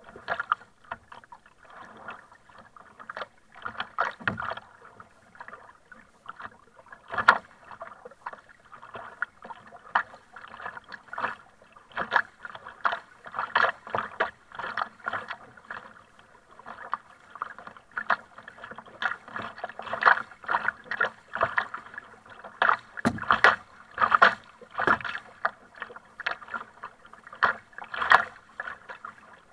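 A kayak being paddled: the double-bladed paddle dipping and splashing on alternate sides again and again, with water rushing and slapping against the hull.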